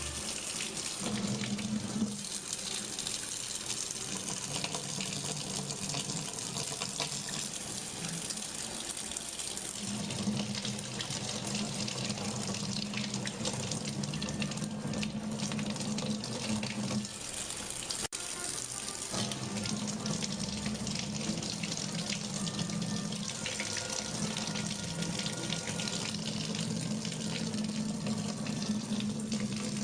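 Running water, like a tap, flowing steadily. A steady low tone comes in and drops out several times.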